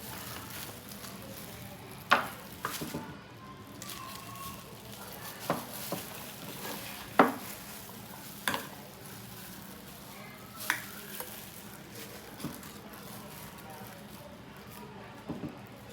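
Battered food frying in hot oil with a steady sizzle, broken by about eight sharp taps at irregular moments.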